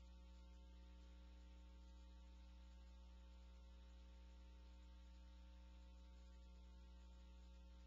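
Near silence apart from a faint, steady electrical hum that does not change.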